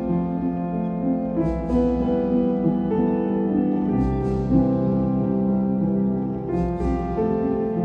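Calm instrumental background music, sustained chords changing every second or two.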